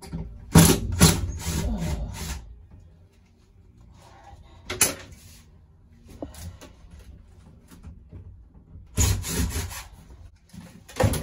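Scraping and rubbing of cab roof headliner panels as they are pulled and worked loose, in three rough bouts with quieter stretches between.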